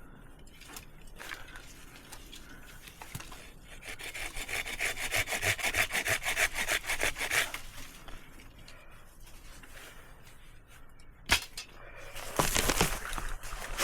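Hand saw cutting firewood in a run of quick, even rasping strokes for a few seconds, followed later by a single sharp knock and then rustling near the end.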